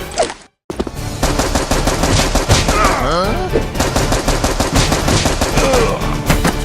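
Rapid automatic-gunfire sound effects, loud and continuous, dubbed over a Nerf battle. A short swooping sound comes about three seconds in, and a brief cut to silence comes right at the start.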